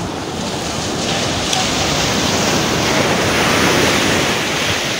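Sea surf washing up a sandy beach: the rush of a breaking wave swells from about a second in and eases off near the end.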